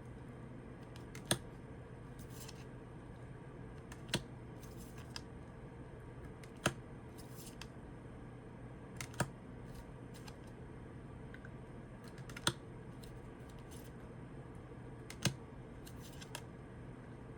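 Tarot cards being handled and laid down one at a time, a sharp tap every two to three seconds with faint rustling between, over a low room hum.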